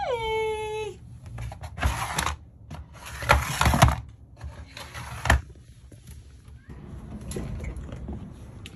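Rustling and clattering from objects being handled, in irregular bursts over a few seconds, loudest about three and a half seconds in, then dying down.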